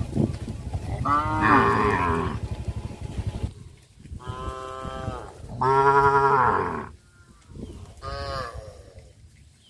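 Cattle mooing: four drawn-out moos of about a second or more each, the loudest about six seconds in.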